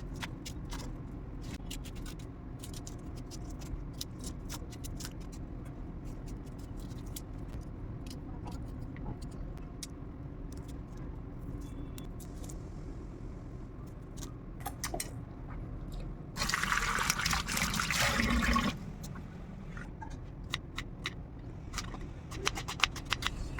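Water running for about two seconds a little past the middle, among scattered light clicks and knocks of kitchen handling over a steady low hum.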